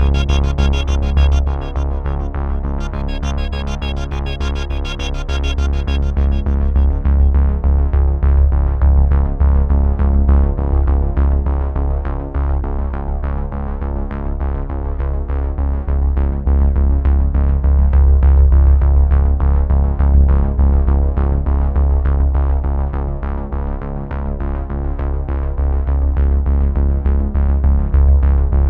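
Electronic synthesizer music with a strong, steady bass line. Its high end fades away about six seconds in, leaving a duller sound.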